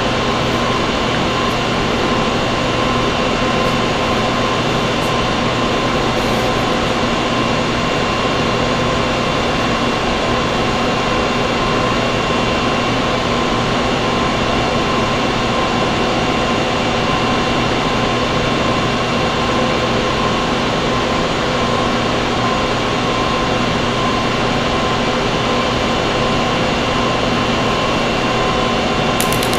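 A steady, unchanging drone of hiss mixed with a low electrical hum.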